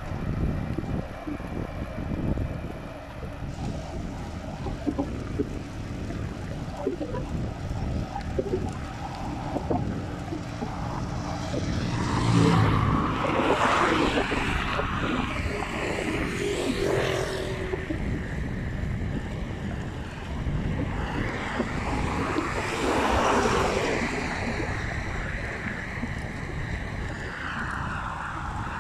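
Wind buffeting the microphone of a camera riding on a moving bicycle, a constant rumbling rush. It swells louder about halfway through and again a little later.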